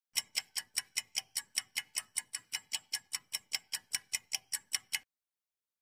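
Clock-ticking sound effect counting down the answer time: quick, even ticks about five a second, stopping abruptly about five seconds in.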